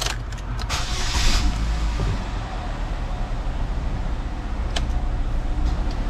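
A few clicks, then the 2008 Chevy HHR's four-cylinder engine cranks briefly about a second in, catches, and settles into a steady idle, heard from inside the cabin. A couple of single clicks follow later on.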